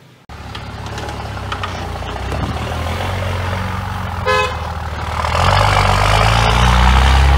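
Dodge Ram dually pickup's Cummins turbo-diesel engine running as the truck pulls away through snow, getting louder about five seconds in as it accelerates. A short horn toot sounds about four seconds in.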